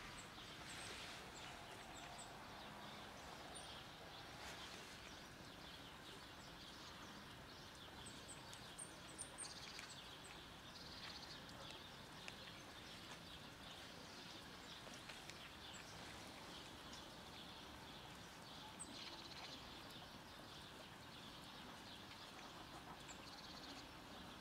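Quiet outdoor background with a cat faintly crunching dry kibble in small irregular clicks, and a few faint high bird chirps.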